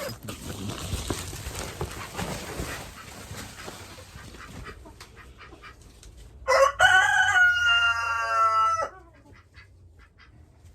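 A rooster crowing once, a long crow of about two and a half seconds that starts about six and a half seconds in. Before it there is a rustling noise.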